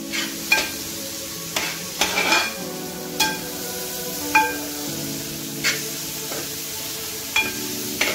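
Chopped shallots and coconut slices sizzling in hot coconut oil in a large aluminium uruli while a spoon stirs them, knocking and scraping against the pot about once a second; each knock rings briefly.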